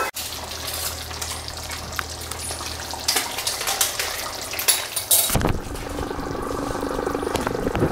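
Thick chicken curry simmering and bubbling in a kadai over a gas flame, with a few sharp clicks about three to five seconds in. The bubbling turns louder and denser about five seconds in.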